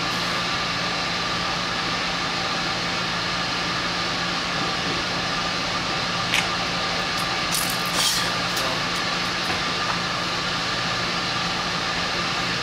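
Steady mechanical hum and hiss of ventilation blowers in a large fabric-domed hall, with a few sharp light clicks and clatters about halfway through.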